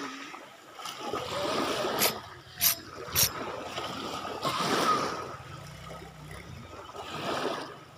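Small waves washing up onto a pebbly beach and draining back, swelling and fading a few times. Three sharp clicks come in quick succession about two to three seconds in, and a faint low hum sits under the second half.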